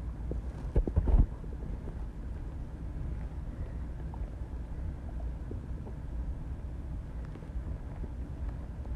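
Body sounds recorded up close: a steady low rumble, with a brief cluster of louder low thumps about a second in.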